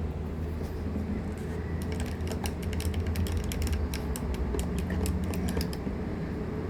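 Stirring rod clicking and tapping against the side of the container as coloured water is stirred: a run of quick, irregular clicks for about four seconds, over a steady low hum.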